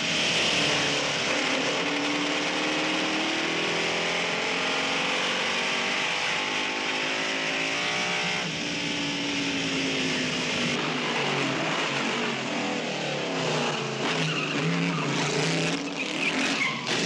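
Lancia-Ferrari D50 V8 racing engine running hard, its pitch rising and falling as the car is driven, with a sudden drop about eight seconds in and quicker changes near the end, over a steady high hiss.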